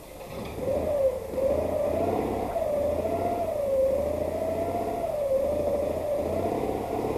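Early Citroën 2CV's air-cooled flat-twin engine starting and running, with a whine that rises and falls smoothly about once a second as the revs swell and ease.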